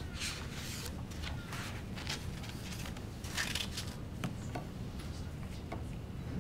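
Quiet room with faint rustling of clothing and a few small clicks as a medal is pinned onto a uniform jacket.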